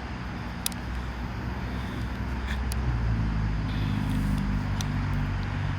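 Motor vehicle engine running nearby, a steady low hum that grows louder about halfway through, with a few faint clicks.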